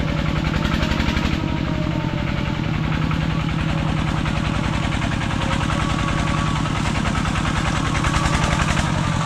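A vehicle engine running steadily, with a rapid, even pulse from its firing.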